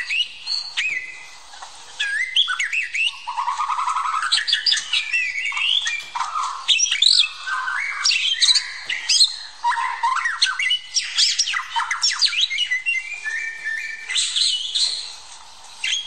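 White-rumped shama (murai batu) singing a long, varied song of clear whistles, rising and falling glides and rapid trills, with harsh notes mixed in. The song breaks off briefly about a second in and again near the end.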